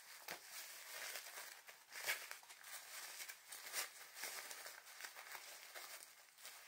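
Disposable dog diaper being unfolded and handled, its plastic-backed material crinkling in irregular rustles, with sharper crackles about two seconds in and again near four seconds.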